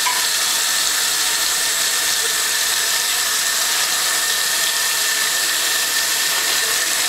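Steady kitchen noise: a loud, even hiss with a faint high whine under it, unchanging throughout. It could be food frying on the stove or a fan.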